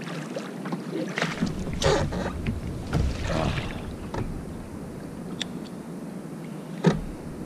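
Kayak paddle strokes splashing in the water over the first few seconds, then a single sharp knock near the end.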